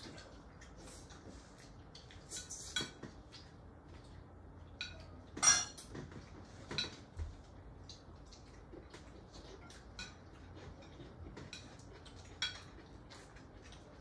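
Forks and spoons scraping and clinking against dinner plates as several people eat, in scattered light clinks with a sharper one about five and a half seconds in.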